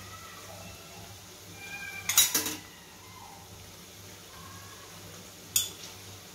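Metal clatter of a hand-held lemon squeezer as lemon halves are loaded and pressed: a quick run of knocks about two seconds in, then a single sharp click near the end.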